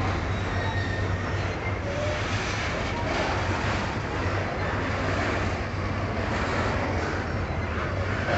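A freight train of covered grain hopper wagons rolling steadily past, its wheels running on the rails in a continuous noise.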